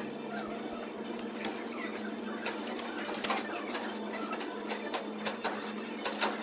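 Gym room ambience: a steady mechanical hum with many scattered short clicks and light clanks.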